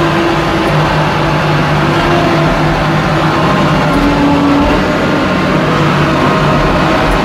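Wheel loader's diesel engine running loudly and steadily as the machine drives along a dirt road, heard from the operator's cab, its pitch shifting slightly now and then.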